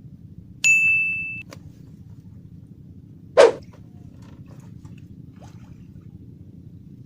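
A high, steady ding lasting under a second near the start, then one short, loud burst about three and a half seconds in, over a faint low steady background.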